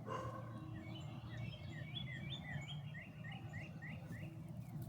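A songbird singing a quick series of about a dozen short, falling chirps, from about a second in until near the end, over a faint steady low rumble.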